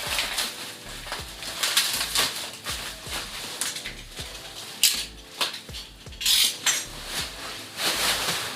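Metal chair parts and assembly hardware clinking and clattering as they are handled and fitted together, with many sharp clicks and knocks and a few short scraping swishes.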